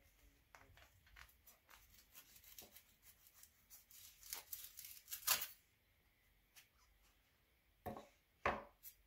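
Wooden handle of an old handsaw being worked loose from the rusty steel blade by hand: a run of small scrapes and clicks of wood against metal, then two sharper knocks near the end as the handle comes free.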